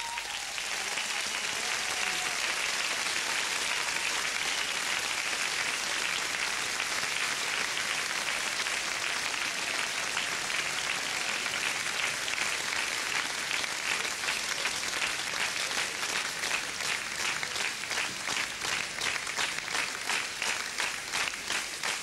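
Large audience applauding. About three-quarters of the way through, the scattered clapping falls into rhythmic clapping in unison, about two claps a second.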